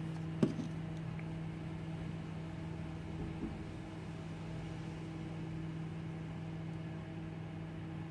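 A steady low electrical hum with even overtones, and a single sharp tick about half a second in.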